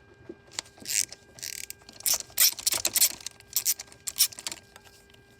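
Ratchet wrench and socket clicking and clattering in irregular bursts down a spark plug well, working out a spark plug from the engine.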